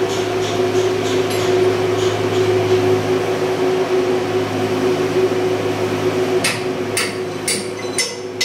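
Steady hum of ship's engine-room machinery. Near the end comes a run of four or five sharp knocks, about two a second.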